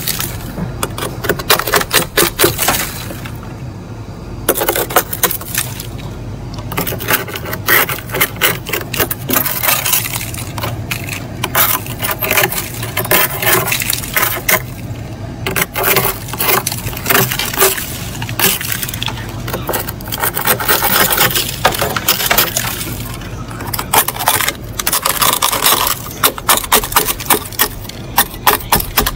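Thick freezer frost being scraped off the inside wall of a chest freezer with a plastic scraper: rapid scraping strokes in dense runs, with brief pauses between runs.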